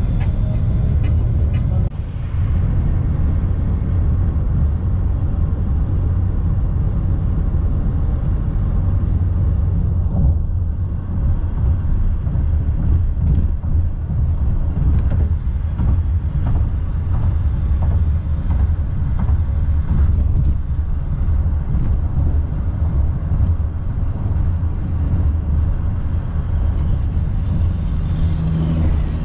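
Steady low rumble of a car driving at road speed, heard from inside the cabin: tyre and engine noise. Near the end a semi truck passes close alongside.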